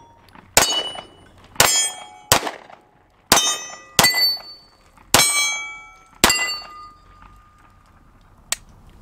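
Glock 19 Gen 4 9mm pistol fired seven times at an uneven pace, each shot followed by the ringing of the steel targets. A single faint click comes near the end.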